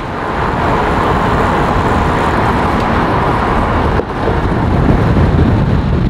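Road and wind noise of a moving vehicle, steady throughout, with a short break about four seconds in.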